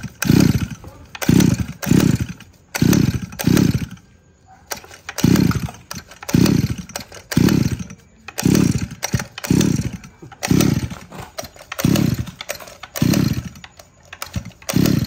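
Small two-stroke Robin brush-cutter engine being pull-started over and over, about a dozen rope pulls at roughly one a second, with a short pause partway through. Each pull gives a brief cranking burst that falls in pitch and dies away, and the engine does not keep running between pulls.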